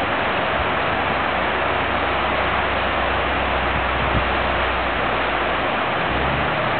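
Steady rush of river rapids over rocks, with a low steady engine drone underneath from the log truck's Caterpillar 550 diesel, which shifts in pitch near the end.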